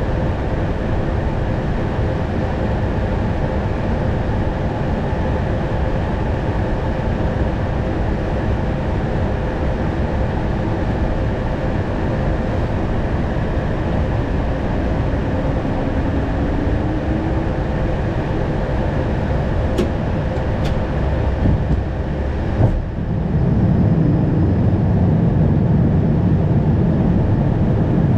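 Airbus A220 cockpit noise on short final: steady airflow and engine noise with a faint steady hum. Near the end comes a sudden thud, then a louder low rumble, which fits the main wheels touching down and the aircraft rolling out on the runway.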